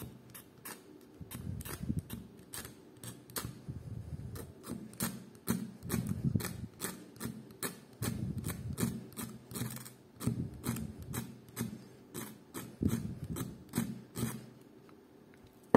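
Saw blade of a Victorinox pocket knife scraped repeatedly along a small ferrocerium rod to throw sparks onto tinder: a long run of short, sharp rasping strokes, about one or two a second.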